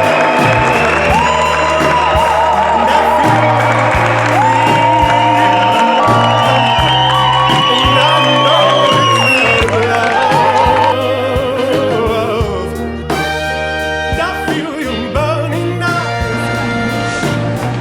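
Music: a song with a singer holding long notes with vibrato over a steady bass line and a light beat.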